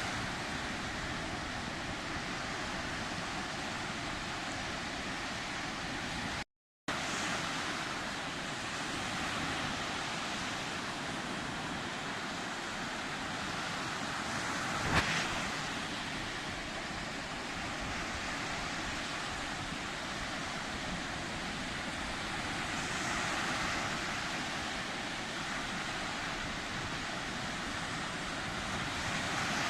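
Sea waves washing onto the shore: a steady rush of surf that swells and eases every several seconds. The sound cuts out completely for a moment about a quarter of the way in, and a single sharp click comes about halfway through.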